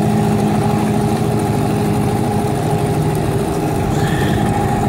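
Golfstream (Parsun) T8 BM 8-horsepower two-stroke outboard motor running at a steady speed as it pushes the boat across the water.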